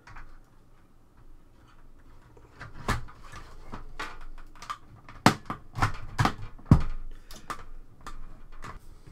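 Plastic casing parts of an Amstrad PCW 9256 being handled and fitted back together: a quiet start, then from about two and a half seconds in a run of irregular clicks and knocks, the loudest in the middle.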